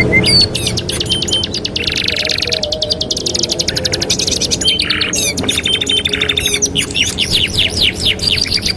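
Two domestic canaries singing together without a break, a dense stream of rapid trills, rolling runs of repeated notes and quick gliding whistles, high-pitched.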